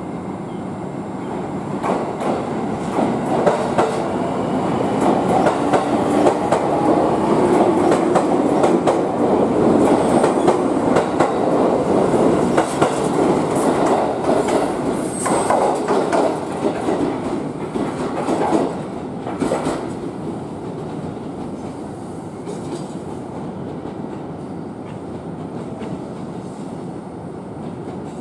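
Train running past along the platform track, its wheels clacking over rail joints with a few short, high wheel squeals; the sound swells over the first several seconds, stays loud through the middle and eases off after about twenty seconds.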